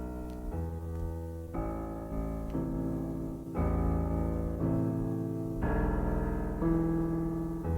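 Electric keyboard playing slow, held chords over a deep bass note, the chord changing about once a second.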